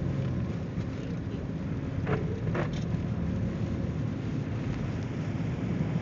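Steady low rumble of a four-wheel-drive vehicle's engine and tyres on a snow-covered road, heard from inside the cabin.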